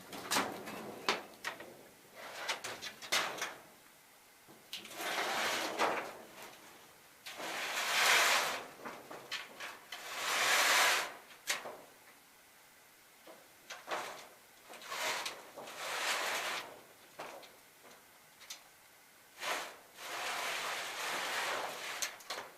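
Roof shingles scraping and sliding as they are handled and pushed into place, a dozen or so drawn-out scrapes with a few short knocks between them.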